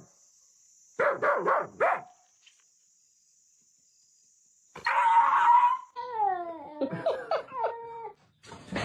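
A dog vocalising: a quick run of short yips about a second in, then after a pause a louder cry and a string of falling whines.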